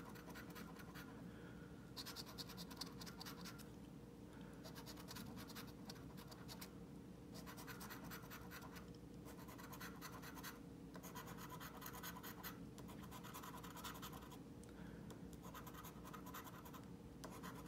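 A coin scratching the latex coating off a paper lottery scratch-off ticket, faintly, in repeated strokes of a second or two with short pauses between them.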